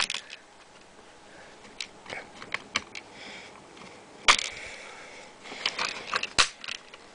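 Plastic parts of a spring-powered airsoft pistol being handled and fitted back together: scattered clicks and light scraping, with the sharpest click about four seconds in and another about six and a half seconds in.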